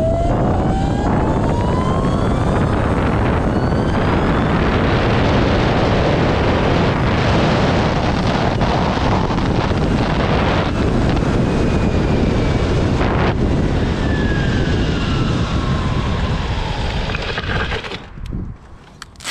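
Electric go-kart with two Castle 2028 800kv brushless motors running hard: heavy wind noise on the microphone over a motor whine that climbs in pitch during the first few seconds as it accelerates, then falls later as it slows. The noise drops away about a second before the end.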